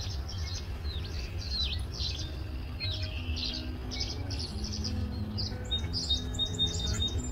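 A group of swallows chattering with quick rising and falling chirps, over a low rumble. Faint background music with held notes comes in partway through.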